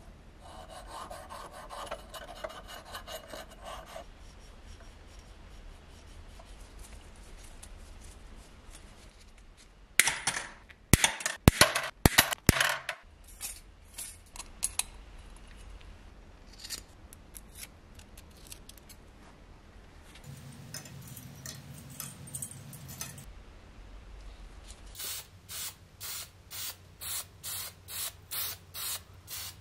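Workshop handling of small painted metal parts and wire by gloved hands: soft rubbing at first, then a cluster of loud clicks and rattles, and scattered small clicks. Near the end come short hissing bursts, about one and a half a second.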